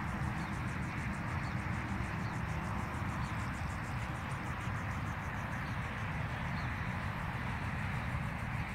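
Steady outdoor background noise: a low rumble under a hiss, with no clear single event.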